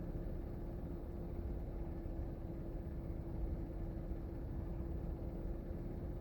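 A small motor running steadily: a low rumble with one constant tone.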